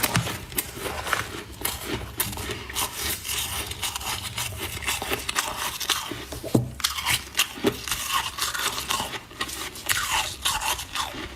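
Frost being bitten and chewed up close, a steady run of crisp, irregular crunches and scrapes.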